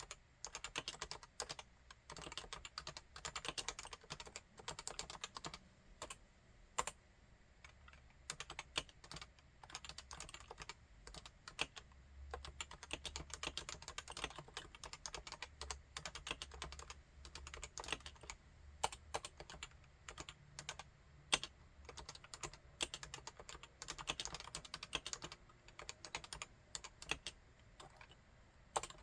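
Continuous typing on a Realforce 87UW tenkeyless keyboard with standard Topre electrostatic capacitive switches: a dense stream of keystrokes with some louder single key presses standing out.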